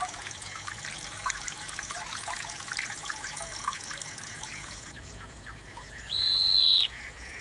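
AI-generated sound effect of water trickling with small drips. About six seconds in, a single high bird chirp, held briefly, stands out as the loudest sound.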